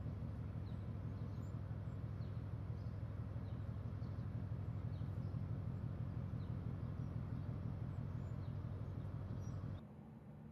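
Steady low outdoor rumble with sparse faint high chirps, dropping off abruptly near the end.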